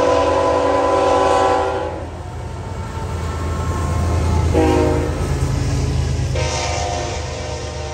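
Freight train's diesel locomotive air horn sounding a multi-note chord: the end of a long blast, a short blast about four and a half seconds in, then another long blast near the end, the pattern of a grade-crossing signal. Under it runs the low, steady rumble of the locomotive's diesel engine, swelling in the middle.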